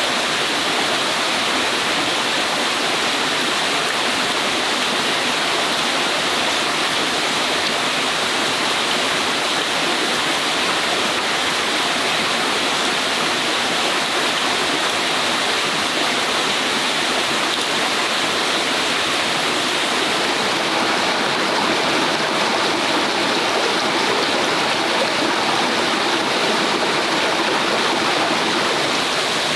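A small forest stream running over rocks, a steady, unbroken rush of water.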